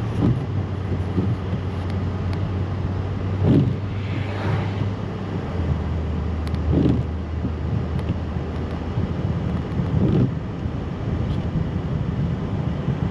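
Inside a truck's cab on a slushy road: a steady engine hum and tyre noise, the hum dropping in pitch about five and a half seconds in. Windshield wipers sweep every three seconds or so.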